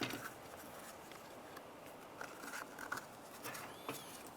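Faint clicks and scrapes of a plastic cover being handled and fitted onto a door latch and cable assembly, with a short squeak near the end.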